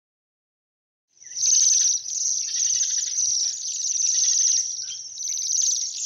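Bohemian waxwing calls: a continuous high, thin trilling, starting about a second in after silence.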